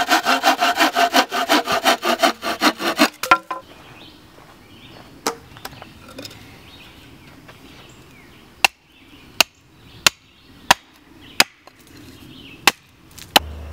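Hand saw cutting a poplar pole on a wooden chopping block, with rapid, even strokes for about three seconds. Then comes a single sharp chop about five seconds in, and from about nine seconds in a hatchet strikes the end of the pole against the block, with sharp chops about every three quarters of a second.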